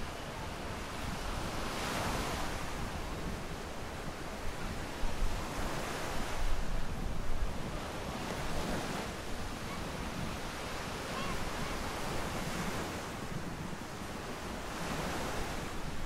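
Ocean surf breaking and washing up a sandy beach, swelling every three to four seconds, with wind buffeting the microphone.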